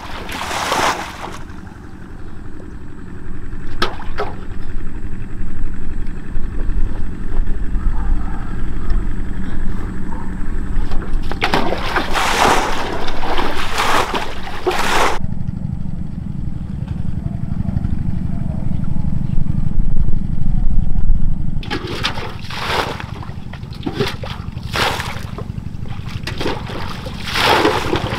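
Water splashing and sloshing in several bursts, the longest lasting a few seconds, over a steady low rumble.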